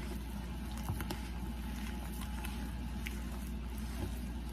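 Hands mixing and kneading corn masa dough in a bowl: soft squishing and patting with a few light clicks, over a steady low hum.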